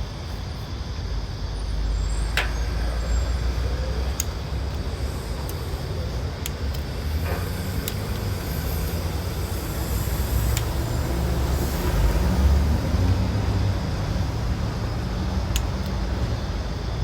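Steady low rumble of a running vehicle engine, with a few faint clicks.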